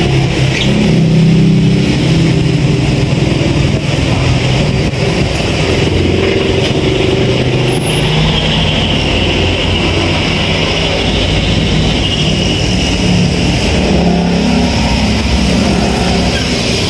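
An engine running steadily: a continuous low hum that wavers slightly, with a hiss above it.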